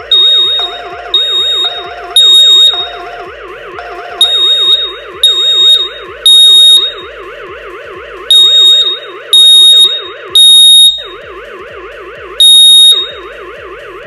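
Xiaomi smart smoke detector alarm sounding, set off by smoke from burning paper: about eleven shrill, very loud high beeps in irregular bursts, the later ones louder. Under them a lower warbling siren runs without a break, the alarm of the detector's gateway, and it dips briefly near the eleven-second mark.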